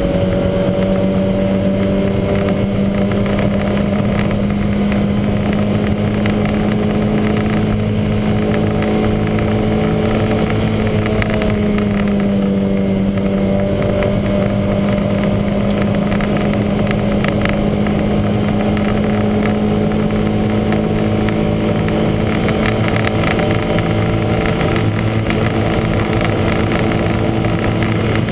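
Lancia Montecarlo's twin-cam four-cylinder engine running hard at fairly steady revs, its pitch drifting only slightly up and down, with the huge misfire the car is suffering.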